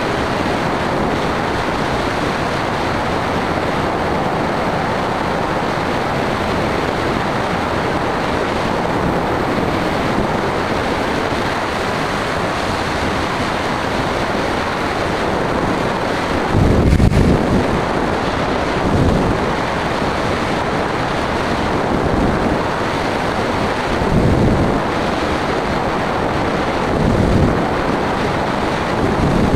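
Steady rush of wind over the microphone of an onboard camera on a small aircraft in flight, with several short, louder low buffets in the second half as the airflow gusts.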